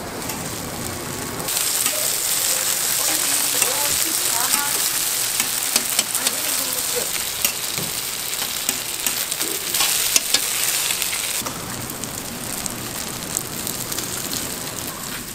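Food deep-frying in hot oil at a street-food stall's fryer: a steady sizzle with many fine crackles. It grows louder about a second and a half in and eases back near the end.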